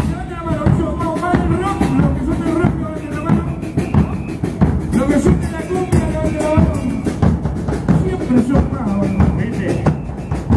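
Murga porteña percussion: bass drums with cymbals and snare drums playing a driving carnival rhythm, with a melody line carried over the drumming.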